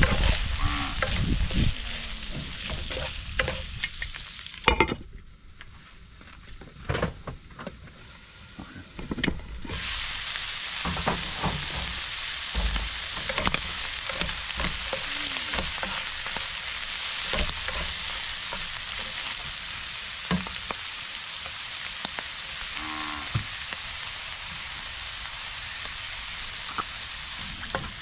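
Food frying in a pan: a steady sizzle starts abruptly about ten seconds in and keeps going, with occasional taps of a utensil. Before it, scattered knocks and clatter.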